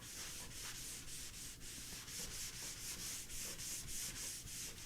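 Stain being rubbed back and forth onto a sanded wooden cabinet top panel, a quiet rhythmic scrubbing hiss of about four strokes a second.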